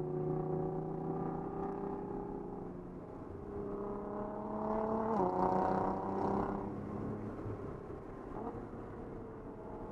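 Nissan 300ZX Z32's twin-turbo V6 heard from inside the cabin on a spirited drive. The revs climb under acceleration, dip sharply once midway, climb again, then fall away as the throttle eases off.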